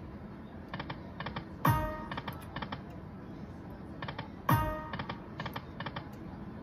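Aristocrat Dragon Link Golden Century pokie machine spinning its reels in quick succession. Twice, about a second and a half and four and a half seconds in, comes a loud chime with a low swooping tone falling in pitch. Between the chimes come quick runs of light ticks as the reels stop.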